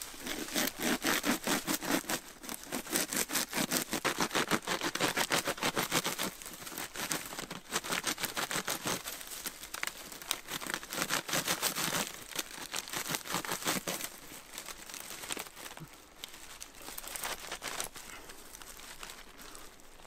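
Dry thatching reed rustling and crackling as hands push in among and pull at the laid stems. A dense run of crackles that thins out and gets quieter after about twelve seconds.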